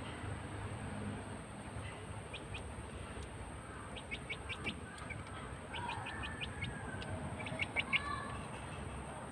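Young chickens chirping: short runs of quick, high chirps, with a few softer calls mixed in, mostly in the second half.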